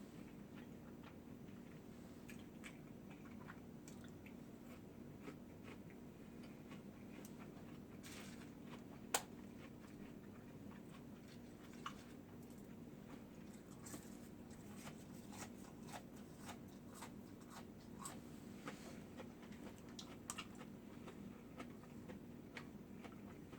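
Close-up chewing and biting of food, with soft crunches and wet mouth sounds scattered through, over a steady low hum. A sharp click stands out about nine seconds in.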